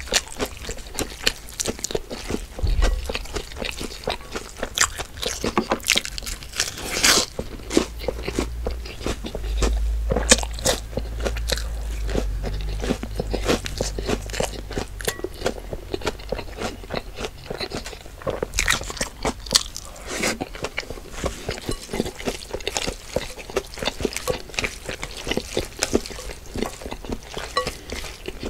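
Close-miked eating: irregular crunching bites and wet chewing of food, with a low rumble underneath through the first half.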